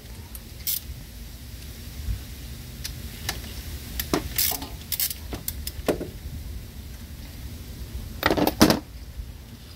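Hand ratchet with a 10 mm socket clicking and clinking on the nut of the alternator's power lead: scattered metallic clicks, with a louder close cluster about eight seconds in.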